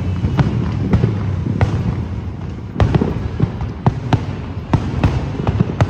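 Fireworks going off in a rapid, irregular string of bangs and cracks, several a second, with a few louder reports about three seconds in and near the end.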